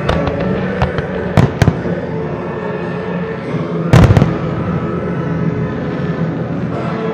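Aerial firework shells bursting in sharp bangs, a few in the first two seconds and the loudest cluster about four seconds in, over sustained music from the pyromusical's soundtrack.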